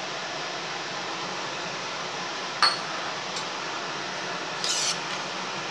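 A steel ladle clinks once sharply against a pressure cooker about two and a half seconds in, ticks lightly again, then scrapes through soaked basmati rice frying in oil and ghee near the end, over a steady hiss.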